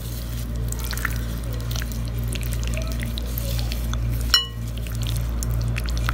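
Wet squishing and small sticky clicks of raw chicken pieces being mixed by hand in a thick yogurt-and-spice marinade in a glass bowl, over a low steady hum. A single sharp ringing click about four seconds in.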